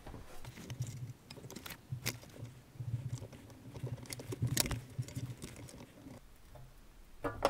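Hand-lever bench shear cutting through scrap sheet metal: faint, scattered metallic clicks and scrapes of the sheet and the lever, with a few sharper ticks.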